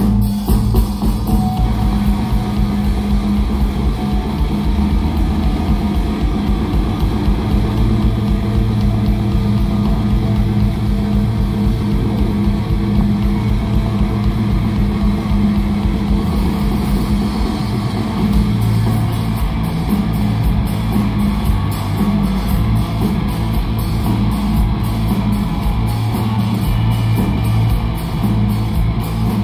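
Live rock band playing a song: electric guitars, bass guitar and drum kit, loud and steady, heard from the audience in a concert venue.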